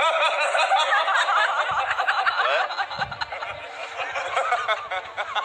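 A man laughing: a stream of snickers and chuckles.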